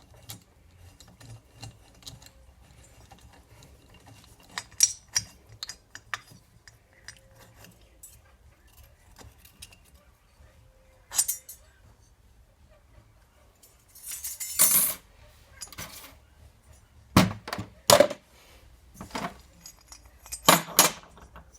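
Metal tools and engine parts clinking and knocking against each other on a workbench during hand disassembly work, in scattered taps with a few louder clusters of hits and a brief scraping rattle.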